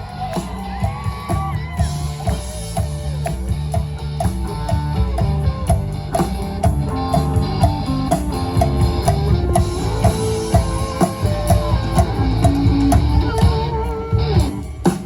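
Live rock band playing an instrumental passage: electric guitar over a drum kit keeping a steady beat.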